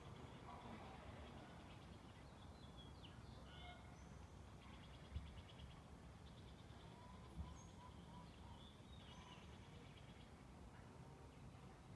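Faint forest ambience: distant birds chirping and giving short rapid trills over a low rumble. Two brief low thumps about five and seven and a half seconds in.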